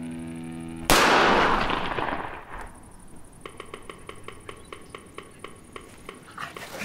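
A single pistol shot about a second in, loud and sudden, with a long echoing tail that dies away over about a second and a half.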